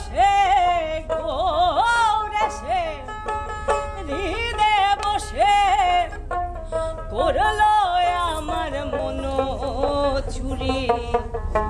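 A woman singing a Bengali folk song in long, ornamented lines that bend and slide in pitch, with instruments playing along.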